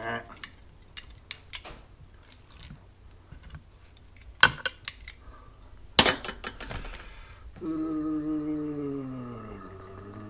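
Metal tongs clicking against a glass baking dish as raw steaks are turned, with two sharper clacks about four and a half and six seconds in. Near the end a man hums a long low note that slides down in pitch.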